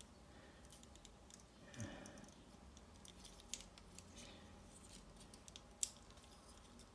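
Faint clicks and light handling sounds from a part-metal action figure being posed in the hands, with two sharper clicks, about three and a half and six seconds in, otherwise near silence.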